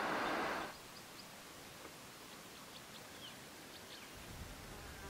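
A steady rushing noise that cuts off abruptly under a second in, leaving quiet outdoor background with a few faint, short, high chirps from small birds.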